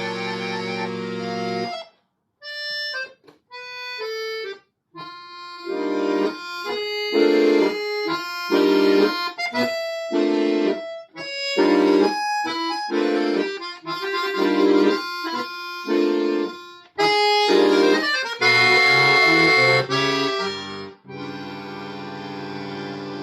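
Solo accordion playing: a held chord breaks off about two seconds in, followed by a few short, separate high notes, then a run of short, punchy chords over bass notes. Near the end a loud, dense chord gives way to a softer held chord.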